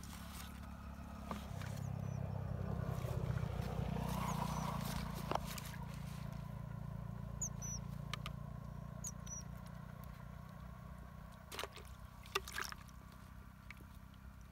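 A distant motor drones low and steady, swelling over the first few seconds and then easing off. A few sharp clicks and rustles come from a small fish being unhooked and handled over a plastic bucket.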